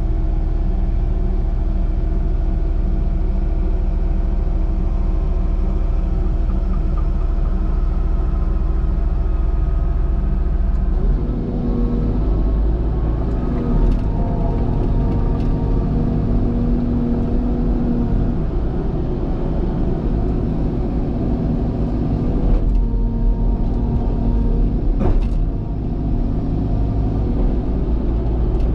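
Cat excavator's diesel engine running steadily while digging. Its note changes about a third of the way in as the hydraulics take load, and a few metallic clanks come from the working machine.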